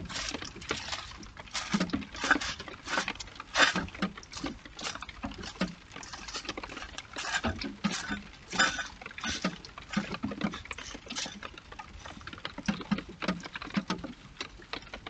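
European hedgehogs scuffling and rustling through dry grass and leaf litter: an irregular run of short scratchy rustles, a few a second, with soft thuds among them.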